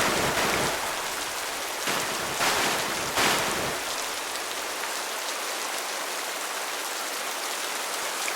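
Rushing river water, a steady hiss of flowing water, with a few brief louder swells of splashing in the first four seconds.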